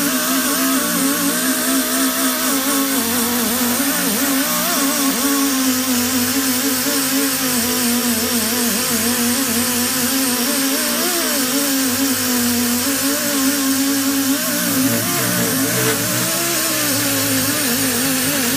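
Ingersoll Rand air die grinder with a small 3M Roloc disc stripping paint and rust from sheet steel. It is a steady, loud whine that wavers in pitch as the disc works the metal, over a constant hiss.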